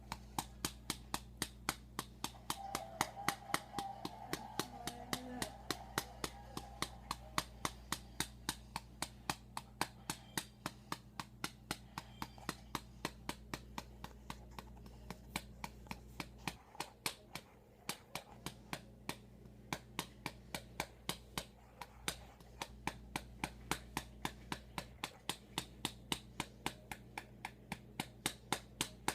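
A hand patting a baby doll's back in a steady rhythm, about three pats a second, as in burping a baby.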